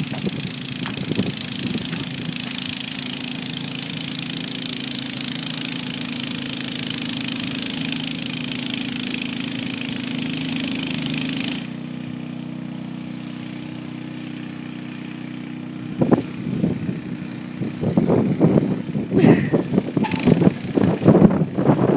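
Honda HS80 snowblower engine running steadily under load while it throws hard-packed snow. A high hiss of the thrown snow runs over it for the first half and cuts off suddenly, leaving the engine running alone. Irregular gusty rumbling comes in during the last few seconds.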